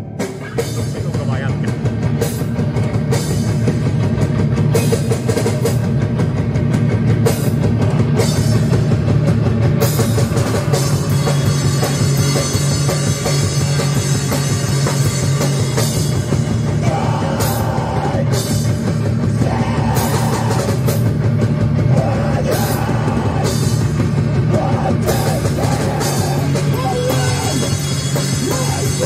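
Live rock band playing loud through amplifiers: electric guitar, bass guitar and a drum kit.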